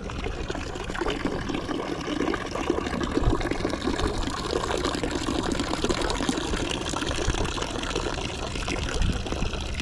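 Water running in a continuous stream from the dragon-head spout of a green cast-iron Milanese street drinking fountain (a vedovella).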